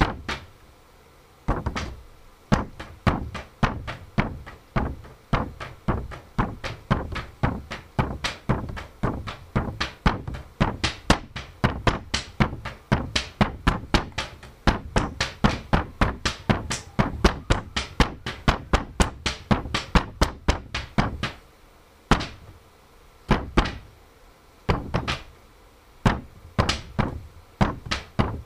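A rhythmic percussion beat made by tapping and thumping on paper: dull thuds and taps, several a second. It pauses briefly past the two-thirds mark, then comes back sparser.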